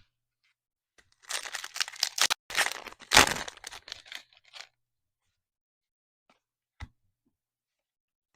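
A trading-card pack's foil wrapper being torn open and crinkled for about three seconds, starting about a second in, followed by a single light tap near the end.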